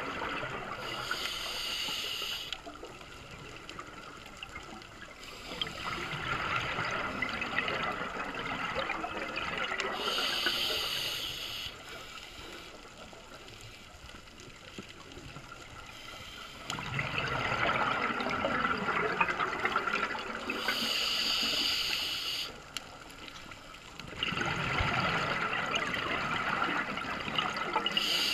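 A scuba diver breathing through a regulator underwater: about three breaths, each a few seconds of bubbling and hissing, with quieter gaps between them.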